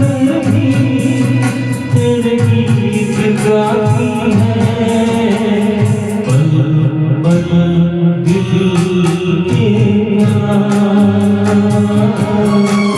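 Hindi film-style song: melody with singing over a steady percussion beat, the beat dropping out briefly around the middle.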